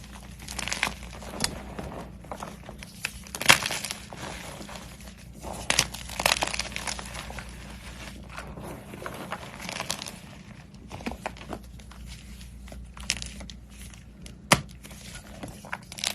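Slime being squeezed and pressed by hand, giving irregular crackles and sharp pops, with a few louder snaps.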